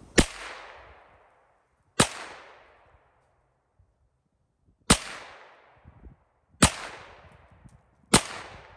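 Five rifle shots fired one at a time, a second and a half to three seconds apart, each followed by a fading echo.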